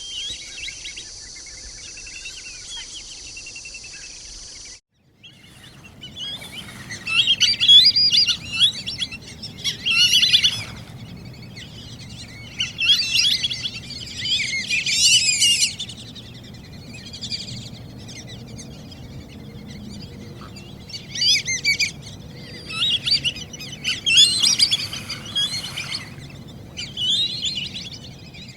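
Black-bellied whistling ducks giving bouts of overlapping whistling calls, in bursts of one to three seconds separated by short pauses. For the first few seconds, before a brief cut, only a steady high buzz is heard.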